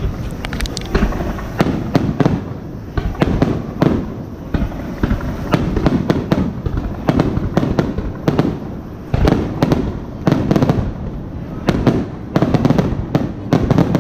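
Aerial firework shells launching and bursting in quick, irregular succession: a dense string of sharp bangs, several a second, thickest in the last few seconds.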